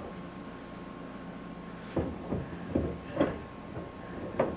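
A sheet-metal truck fender being worked into place against the truck body, knocking against it about five times in the second half, over a steady hum.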